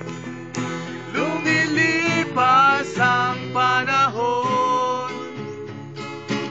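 Two acoustic guitars strummed and picked together, with singing voices carrying a slow melody over them from about a second in, easing off near the end.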